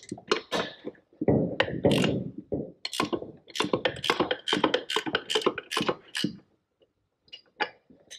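Wrench working a tight lock nut loose on an ATV track-kit hub: a run of sharp metallic clicks and knocks, about four a second from around three to six seconds in, then a few faint ticks near the end.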